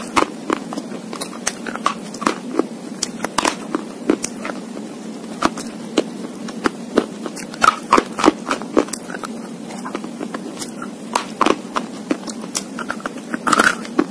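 Slate pencil pieces being bitten and chewed between the teeth, close to the microphone: many sharp, irregular crunches and cracks.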